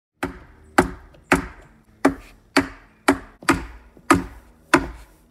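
Chona (Japanese adze) hewing a timber beam: about ten sharp chopping blows into the wood, a little over two a second, each with a short ring.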